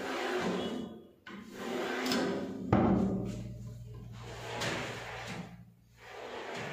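Modular kitchen cabinet drawers sliding on their runners, with a stainless-steel wire basket drawer rattling as it is pulled out. A sharp knock, the loudest sound, comes about three seconds in as a drawer shuts.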